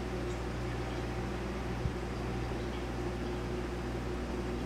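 A steady low mechanical hum with a faint hiss, and one soft knock about two seconds in.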